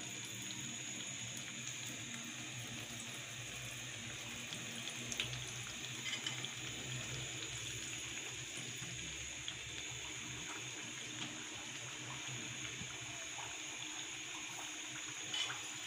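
Oil sizzling steadily as several sweet flour, semolina and coconut tikiyas fry in a kadhai on a low flame, with a couple of light clicks about five and six seconds in.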